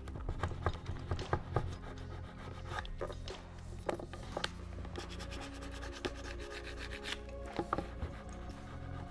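A plastic spatula scrapes across a varnished wooden furniture panel in short, irregular strokes with scattered small clicks. It is shaving off the surplus of a soft wax filler pressed into a chip.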